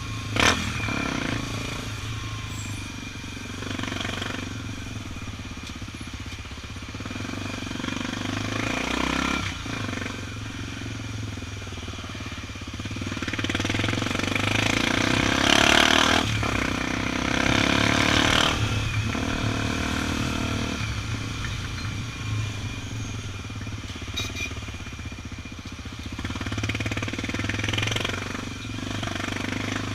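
Honda XR 250 Tornado's single-cylinder four-stroke engine running steadily at cruising speed, heard from the bike itself, with noisy swells that build through the middle and a sharp click just after the start.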